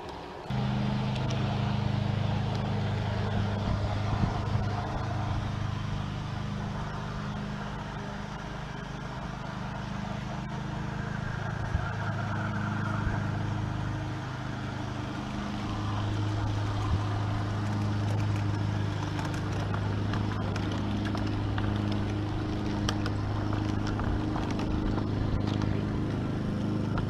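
LGB G-scale model train running along garden-railway track: a steady low hum from the motor and gears that shifts in pitch now and then, with scattered clicks from the wheels on the rails.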